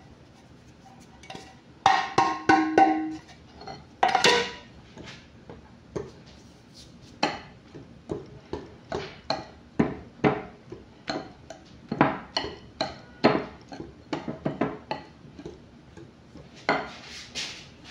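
A metal loaf pan knocked and shaken a few times, ringing briefly, as flour is worked around inside it. Then a wire whisk beats cake batter in a glass bowl, clicking against the bowl about twice a second.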